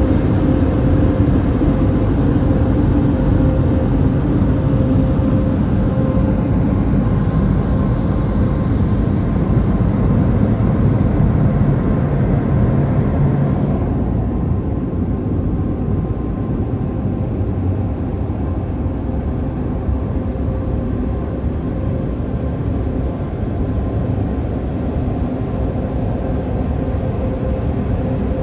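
Air blowers of a touch-free automatic car wash running steadily at the blow-dry stage, a deep steady rush with a faint hum. About halfway through the hiss drops away and it turns duller, heard from inside the truck's cab.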